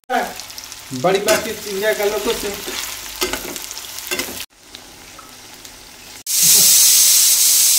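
Chopped onions and whole dried red chillies frying in hot oil in a kadai, with a spatula stirring and scraping the pan through the crackle. About six seconds in, a much louder, steady sizzle takes over as the tomato-and-onion mixture fries.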